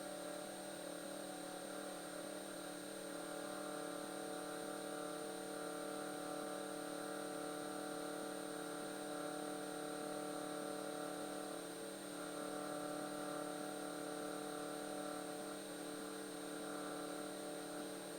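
Cessna 172's engine droning steadily in flight, heard faintly as a low hum with several steady tones and slight swells in level.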